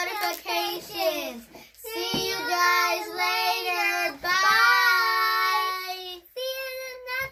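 A young girl singing, with long held notes and short breaks between phrases.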